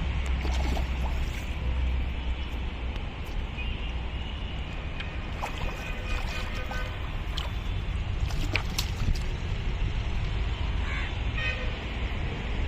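Steady low rumble under an even outdoor noise, with a few faint clicks and short faint tones.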